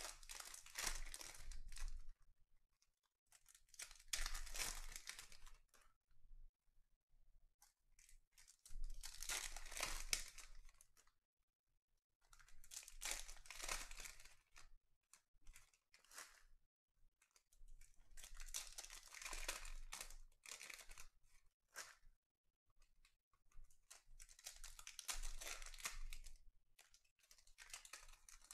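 Foil trading-card pack wrappers being torn open and crinkled by hand, in about six separate bursts of a second or two each, with short quiet gaps between.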